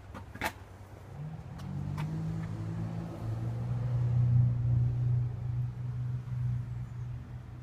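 A vehicle engine's low rumble comes in about a second in, grows louder to a peak near the middle, then eases back toward the end.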